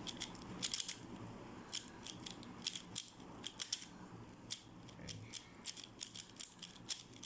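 A 3x3 speed cube being turned fast, its plastic layers clicking and rattling in quick, irregular runs of several clicks a second.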